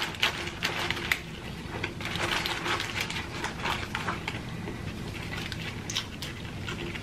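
Close-up eating sounds: food being chewed, with crackling clicks and the rustle of a paper-lined fries basket as fries are picked up. The clicks are thickest in the first second.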